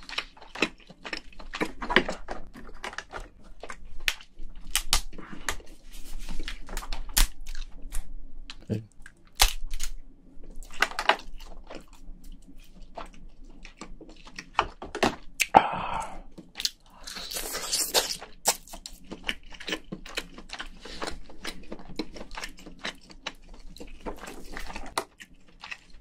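Close-up cracking and snapping of a cooked giant crayfish's shell and legs as they are broken apart by hand, with crunching and chewing in between. A few longer crackling tears come a little past the middle.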